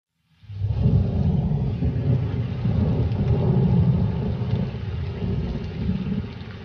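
A long peal of thunder rolling over steady rain, breaking in loudly about half a second in and slowly dying away.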